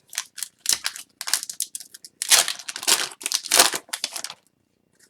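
Crinkling of a trading-card pack wrapper and rustling of cards being handled, in a string of short scratchy bursts that stop about four and a half seconds in.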